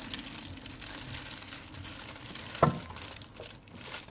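Rear motorcycle wheel being worked back into the swingarm: low rustling and handling noise, with one sharp knock about two and a half seconds in.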